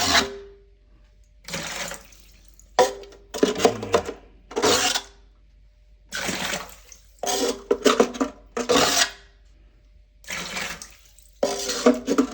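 Water being scooped with a cup from a toilet tank and poured into a bucket: a run of short splashes, one every second or so, with the cup knocking against the tank.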